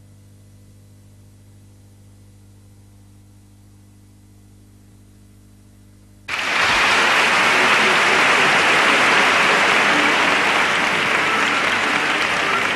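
A faint, steady hum, then about six seconds in a concert-hall audience bursts into loud, sustained applause.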